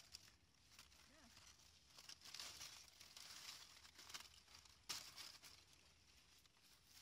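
Faint rustling and crinkling of luffa vine leaves, dry grass and dead leaves as a hand reaches in to pick a gourd, with a sharper rustle about five seconds in.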